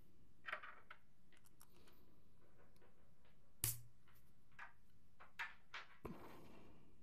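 Light clicks and taps of 3D-printed plastic parts being handled and fitted together, with one sharper click a little past halfway and a brief rustle near the end.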